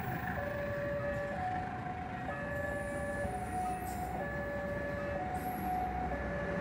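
Railway level-crossing warning alarm sounding in two alternating electronic tones, each held for about a second, over the low rumble of a passing train.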